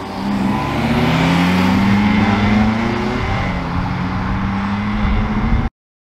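Two Honda Civic hatchbacks, the white FN2 Type R with its 2.0-litre i-VTEC four-cylinder among them, accelerating away with a rising engine note. The sound cuts off suddenly near the end.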